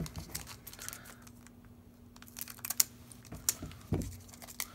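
Scattered light clicks and taps from handling trading cards and booster packs on a play mat, with a soft thump about four seconds in.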